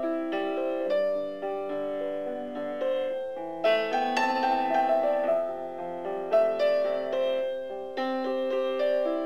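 Background music: a gentle piano melody of single notes over soft chords.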